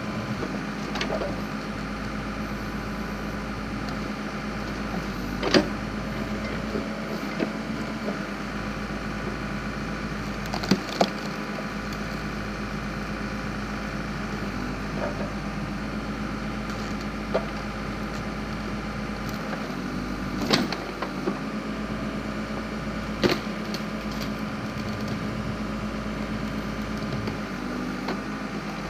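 Backhoe engine running steadily while a log splitter mounted on it splits firewood, with several sharp cracks of splitting wood spaced a few seconds apart.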